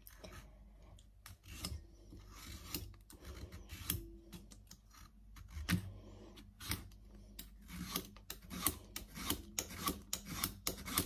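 Cassava (tapioca) root being drawn over the blade of a handheld vegetable slicer, a run of short rasping strokes as thin chip slices are shaved off. The strokes are irregular at first and settle into about three a second in the second half.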